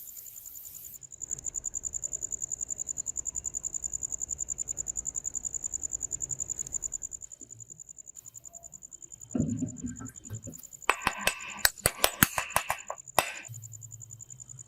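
A steady, high-pitched, rapidly pulsing trill throughout, with a cluster of sharp clicks and knocks from about nine to thirteen seconds in.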